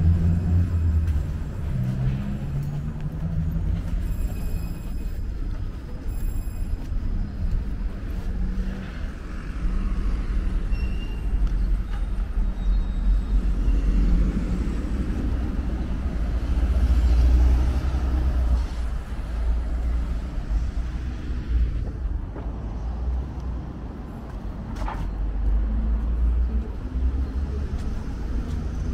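City street traffic: road vehicles passing, a low rumble that swells and eases, loudest a little past halfway.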